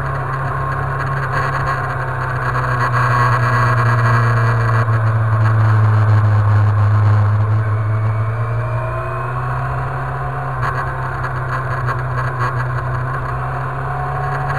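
Motorcycle engine running under way, heard from a camera mounted on the bike, with wind noise over the microphone. The engine note rises and eases off through the bends, loudest about five to seven seconds in.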